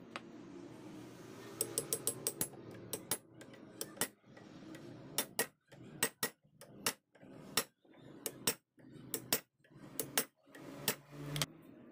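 Steel tube being tapped with a hammer to drive a new sealed ball bearing onto the armature shaft of a Makita 9553B angle grinder: about twenty sharp metallic knocks, a quick run of them about two seconds in, then spaced out in pairs and singles.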